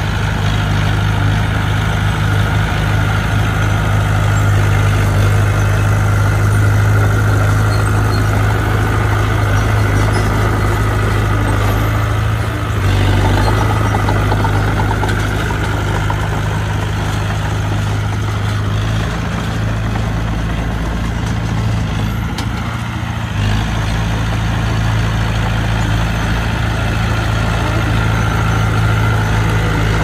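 Heavy diesel engine of earthmoving machinery running steadily with a low hum. Its note shifts briefly a little before halfway and again about three quarters of the way in, as the load on the engine changes.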